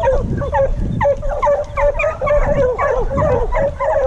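A pack of hunting hounds giving tongue as they run: many short, overlapping yelping barks, several a second, with no break.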